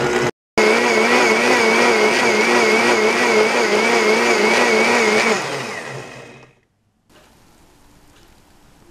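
Blendtec Total Blender motor running at high speed on its Smoothie program, a loud steady whine whose pitch wavers slightly. It cuts out briefly about half a second in, then spins down about five and a half seconds in and stops.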